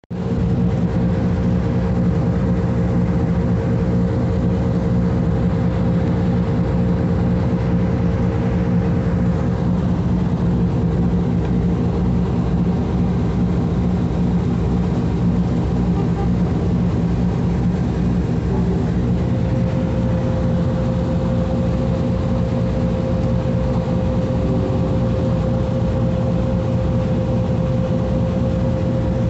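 Sternwheeler boat's engine and V-belt paddlewheel drive running steadily: a constant loud mechanical drone with a steady hum over it. The hum shifts slightly in pitch about two-thirds of the way through.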